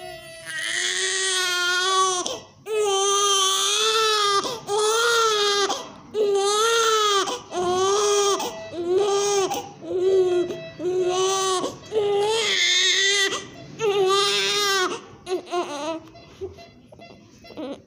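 Newborn baby crying: a run of about ten wails of a second or so each, with short breaths between. The wails trail off into brief whimpers about two seconds before the end.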